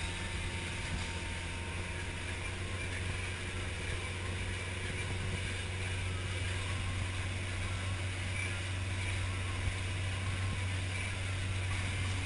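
Stingray runabout's engine running steadily at towing speed, a constant low drone, with water rushing from the hull and wake and a rattle of fittings heard on board.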